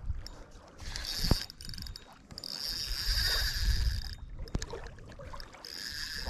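Fishing reel being cranked, its gears giving a steady whir in two spells: one from about a second in to about four seconds, and another starting near the end. There is a sharp click about a second in.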